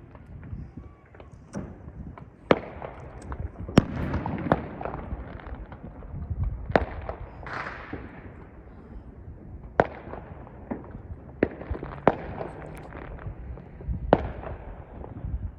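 Fireworks going off across a city: about ten sharp bangs at irregular intervals of one to two seconds, over a continuous low rumble of more distant bursts.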